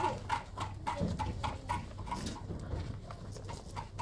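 Rhythmic hollow knocking, about three knocks a second, each with a short ring, thinning out after about two seconds.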